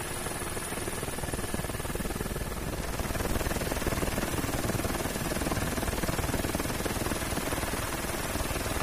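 Helicopter in flight: a steady, fast rotor beat over engine noise, a little louder about three seconds in.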